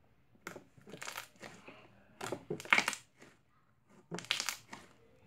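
Pink cloud-cream slime, worked through with instant snow, being squished and pressed by hand: three bouts of crackly squishing, the loudest in the middle.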